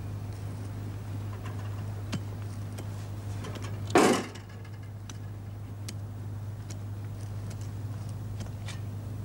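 Steady low hum with faint scattered ticks; about four seconds in, one short, loud thud or scuff.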